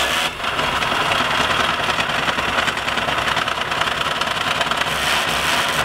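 Cordless drill driving the crank screw of a trailer's scissor stabilizer jack, running steadily as the jack retracts, then stopping abruptly at the end.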